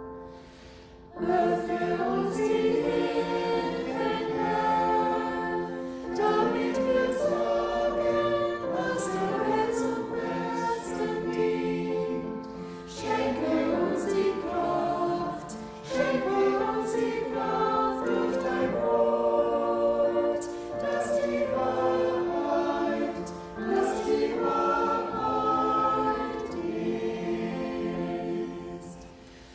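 A group of voices singing a hymn together in phrases with short breaks between them, starting about a second in and tailing off near the end.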